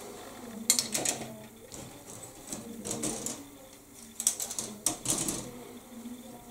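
Plastic model-kit sprues of a 1:72 Hasegawa B-24J Liberator clicking and clattering against each other as they are handled, in three short bursts of clicks.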